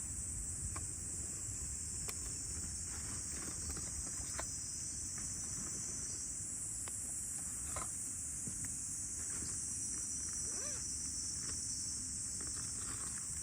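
Steady high-pitched chorus of summer insects, crickets or similar, with scattered faint clicks and a low background rumble.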